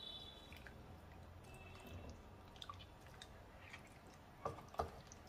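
Wooden spatula stirring duck pieces through coconut-milk curry in a pan: faint wet squishing, with two soft knocks near the end.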